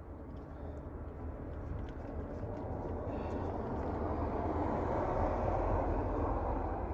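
A passing vehicle: a steady rushing noise that swells over several seconds and eases off near the end.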